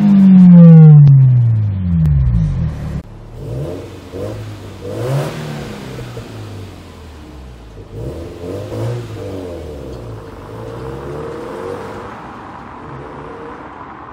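Honda S2000's four-cylinder engine through a J's Racing FX-PRO 70RS full-titanium exhaust, heard from the cabin: loud at first, its note falls steadily over about two seconds as the car slows after full-throttle acceleration. Then a quieter car engine revs up and down several times as it pulls away, fading.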